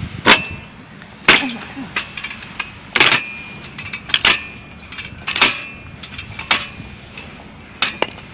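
Foot-operated manual log splitter worked by stamping on its pedal lever: about seven loud, sharp clanks roughly a second apart, each with a short metallic ring, as the blade is driven down into a log and splits it.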